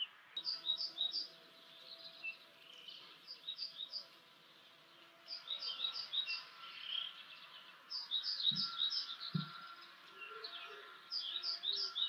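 Small songbirds singing, in repeated short phrases of three or four high notes. Two soft low thumps come about two-thirds of the way through, and low cooing notes join near the end.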